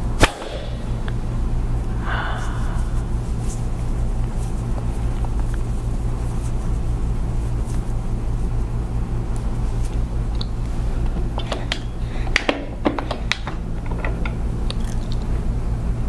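A single sharp crack just after the start, then a few small clicks about twelve to thirteen seconds in, over a steady low hum.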